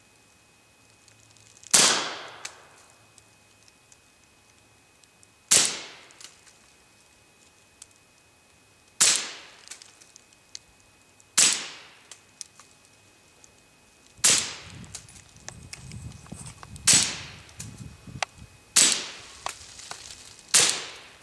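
Beretta 92FS Centurion 9mm pistol firing 147-grain full-metal-jacket rounds through a SilencerCo Osprey suppressor: eight suppressed shots, each a sharp pop that dies away quickly without a long echo. The first four come several seconds apart, the last four about two seconds apart.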